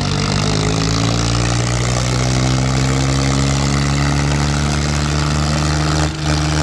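Tractor diesel engines of a New Holland 3630 Super and a Swaraj 744 FE running at full throttle under heavy load in a tug-of-war pull. The engine pitch climbs over the first couple of seconds and then holds steady, with a brief dip in loudness near the end.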